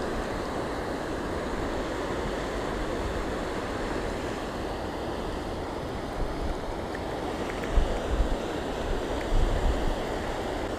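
Rushing floodwater of a swollen, muddy river: a steady noise of fast-moving water. Wind buffets the microphone a few times near the end.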